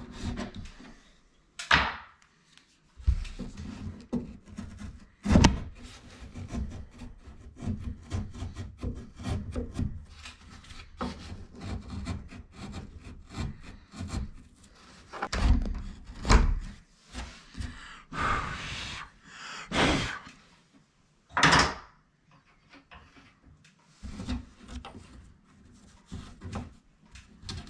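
Hand chisel and utility knife paring and scraping out a shallow recess in the MDF edge of a door, an irregular run of cutting and scraping with several sharp knocks of tool on wood.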